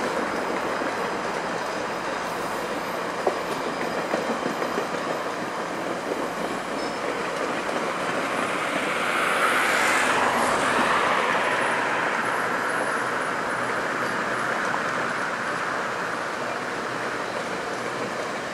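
GO Transit bilevel passenger coaches rolling past, their wheels on the rails making a steady rush with a few sharp clicks a few seconds in. The noise swells loudest about halfway through, then eases.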